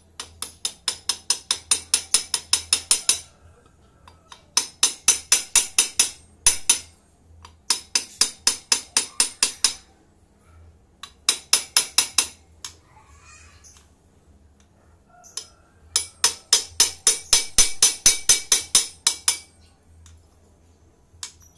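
Socket ratchet wrench clicking in quick, even runs of about six clicks a second as a nut on the motorcycle engine's crankcase is run down. There are five runs with short pauses between them.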